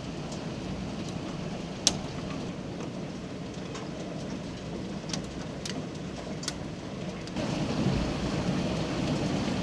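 Heavy hail falling with rain: a steady hiss of pelting ice and water, with a few sharp knocks of single hailstones striking close by. It grows louder about seven seconds in.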